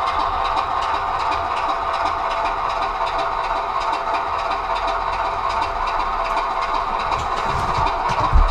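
Class 25 diesel engine sound from a DCC sound decoder, played through a model locomotive's small loudspeaker: a steady engine note.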